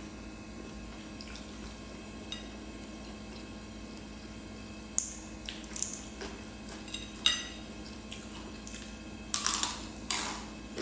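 Close-up eating sounds: chewing and wet mouth noises of someone eating papaya salad and grilled chicken, with scattered sharp clicks that get more frequent and louder in the second half.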